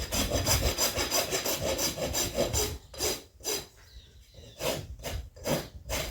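Farrier's hoof rasp filing a horse's hoof in back-and-forth scraping strokes. It starts as a quick, dense run of strokes, then slows to separate strokes about three seconds in.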